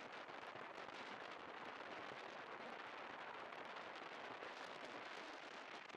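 Wind rushing and crackling over a chest-mounted camera microphone while riding a scooter: a steady hiss dense with fine crackles, the engine hardly standing out.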